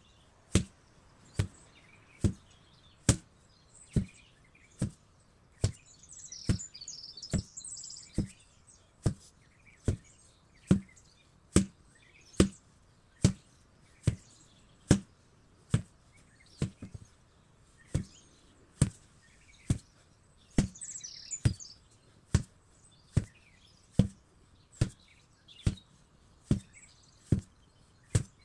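An 8 kg sledgehammer striking over and over in a steady rhythm, a little more than one blow a second. Birds chirp briefly twice in the background.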